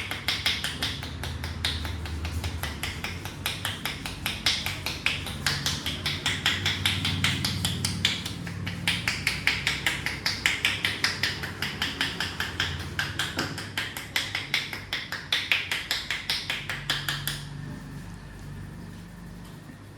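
Hands striking a head in a fast, even percussive massage, about four slaps a second, that stops a few seconds before the end.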